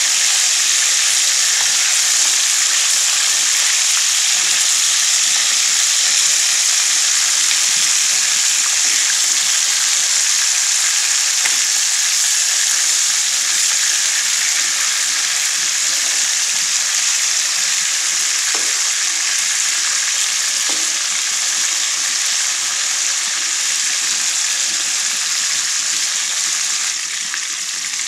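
Marinated broiler chicken pieces sizzling steadily in hot soybean oil in a wok, with the occasional scrape and tap of a metal spatula turning the pieces.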